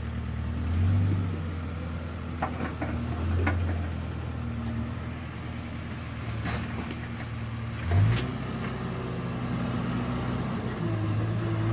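Diesel engine of an earthmoving machine working a hill cut. It runs steadily and swells under load several times, most strongly about eight seconds in, with a few sharp metallic clanks from the working machine.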